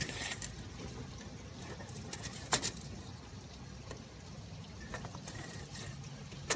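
Scattered sharp ticks of rain drips over a steady low background noise during a thunderstorm, the loudest about two and a half seconds in.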